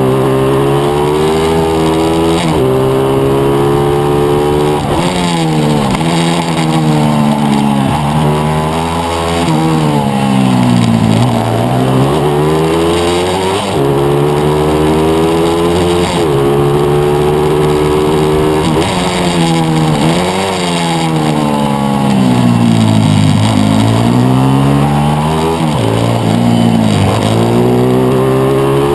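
Small single-cylinder four-stroke pitbike engine at racing revs, heard from on the bike: its pitch climbs in steps through the gears and drops sharply off the throttle for each corner, several times over.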